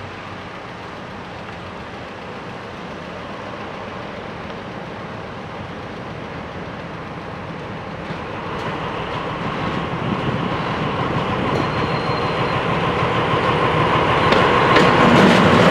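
A MÁV class 418 (M41 "Csörgő") diesel-hydraulic locomotive hauling passenger coaches, approaching and growing steadily louder from about eight seconds in. The engine's drone carries a steady whine, and sharp clicks of wheels on the rails come in near the end as it draws close.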